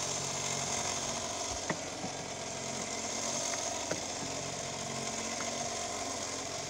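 An engine aboard the fishing boat runs steadily at idle, with a couple of light knocks about two and four seconds in.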